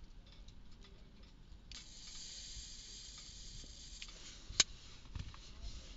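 Butane lighter flame hissing steadily for about two and a half seconds while a cigarette is lit, then a single sharp click about a second later.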